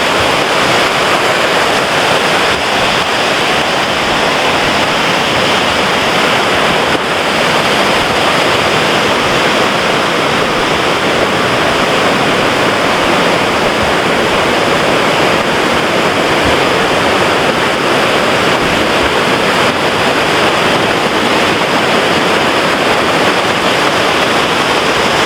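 Creek water rushing over rocks: a loud, steady, unbroken rush of water.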